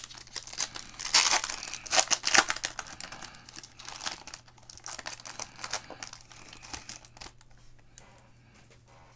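Foil wrapper of a football trading-card pack being torn open and crinkled by hand: a quick run of crackling crinkles, loudest in the first couple of seconds and dying away about seven seconds in.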